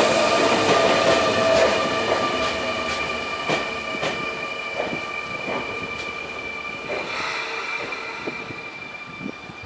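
Sotetsu 9000 series electric train slowing as it arrives, its Hitachi IGBT-VVVF inverter and right-angle cardan drive giving a steady high whine that sinks slightly in pitch. Wheels knock over rail joints every half second to a second, and the whole sound fades as the last cars pass.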